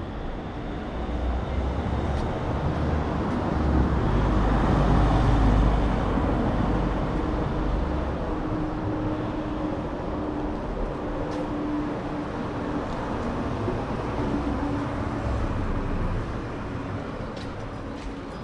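Street traffic: a motor vehicle passes close, its engine and tyre rumble swelling to a peak about five seconds in, then slowly fading into ongoing road noise, with a steady engine hum running through it.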